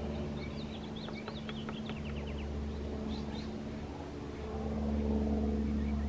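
A quick run of about a dozen sharp taps, an acorn woodpecker pecking at a wooden power-pole crossarm, from about a second in, with a few short high chirps. Under it a vehicle engine hums steadily and grows louder near the end.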